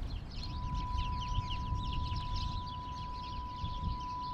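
Many birds chirping in a dense, continuous chatter over a low rumble. About half a second in, a steady pure test tone of the kind that goes with TV colour bars begins and holds unchanged.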